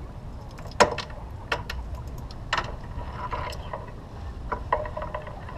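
Sailboat deck hardware clicking and clanking: irregular sharp clicks and knocks, some with a brief metallic ring, over low wind rumble on the microphone.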